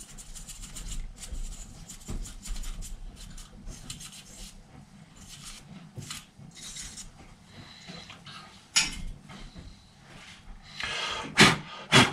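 Bristle paintbrush brushing dust off a brass chandelier's lamp sockets and arms: quick, repeated scratchy strokes, with a few louder knocks near the end.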